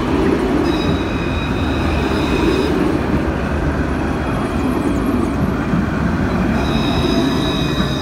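Alstom Citadis 402 electric tram passing close by: a steady rumble of wheels on rail. A high, steady squeal joins in for about two seconds starting about a second in, and again near the end.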